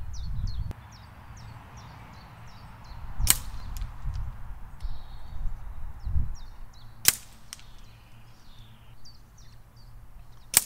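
Three air rifle shots, each a sharp crack, about three and a half seconds apart. Each shot knocks a small hardboard disc target off its peg. Birds chirp throughout, over a low rumble.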